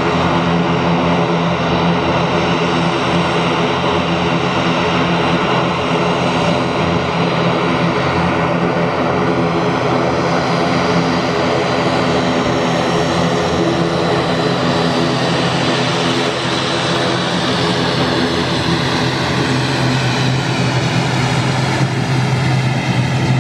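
ATR 72-500's Pratt & Whitney PW127 turboprop engines running at taxi power, a steady propeller drone with a turbine whine as the aircraft taxis by. Near the end, as it passes, the whine drops slightly in pitch.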